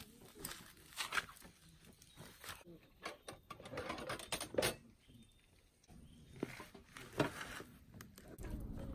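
Handling clicks and knocks from an olive military-style storage box being set on a metal-topped camp table, opened, and a hurricane lantern lifted out. There are several separate sharp knocks, the loudest about halfway through and again about two thirds in.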